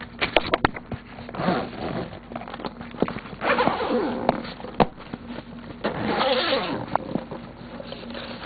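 A backpack zipper being pulled along in three rasping strokes, with sharp clicks from the zipper pull and the bag being handled in between.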